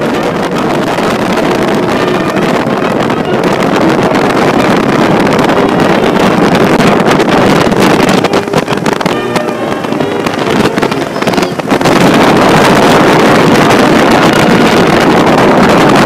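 CityCat catamaran ferry under way: a steady rush of engine and water noise with wind on the microphone, stepping up louder about three-quarters of the way through.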